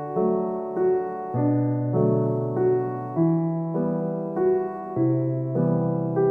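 Background music: a gentle solo piano piece, its notes and chords changing about every half second.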